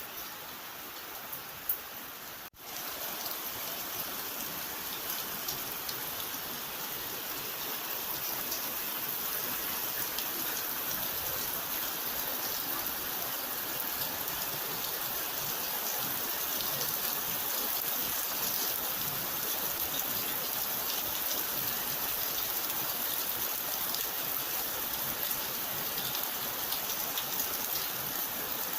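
Steady rain falling, a dense even hiss of drops. About two and a half seconds in it cuts out for an instant, then comes back and grows slightly louder.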